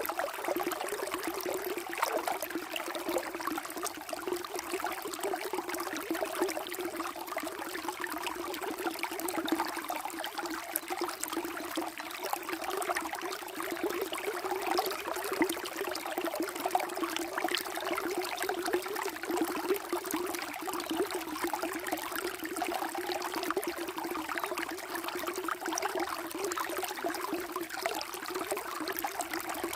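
Water flowing steadily, with a constant light splashing and trickling.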